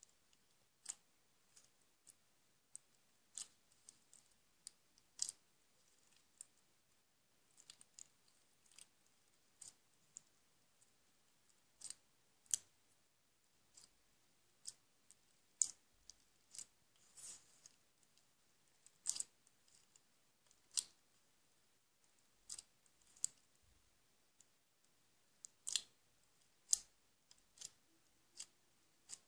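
Slime pressed and poked by fingers, making faint, sharp, irregular clicks and pops about once or twice a second, heard through a screen's speaker.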